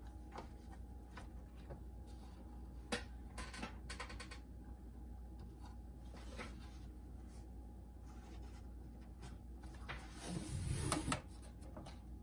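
Light clicks and knocks of hands handling the Aiwa CS-440 boombox's plastic cabinet and chassis, with a louder scraping rustle about ten seconds in as the chassis is lifted and tilted out of the case.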